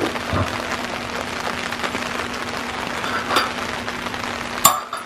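Steady hiss of rain, with a few light metal clinks as a snowplow foot's pin and spring are fitted onto a Boss HTX V-plow blade, and one sharp click near the end.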